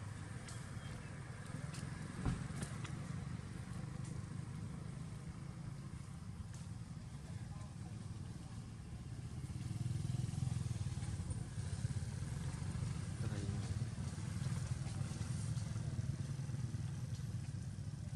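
Road traffic: a steady low engine drone that grows louder about ten seconds in, with a few faint clicks.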